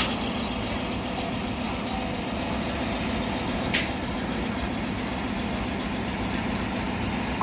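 Steam traction engine driving a belt-driven sawmill, running steadily, with a brief sharp click a little under four seconds in.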